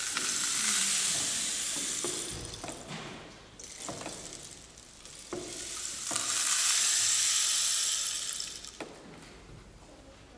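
Rain stick turned over twice: two long trickling rushes of its filling pouring down the tube, one at the start and one about six seconds in, each lasting about two and a half seconds, with a few light knocks between them.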